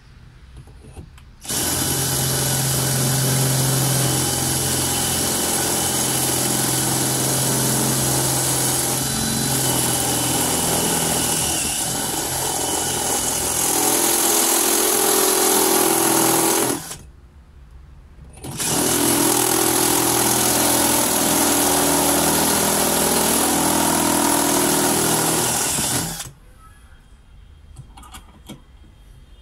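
Cordless drill with a step bit boring out the centre hole of a coin held in a vise, the bit cutting into the metal with a steady high hiss. It runs for about fifteen seconds, stops briefly, then runs again for about eight seconds.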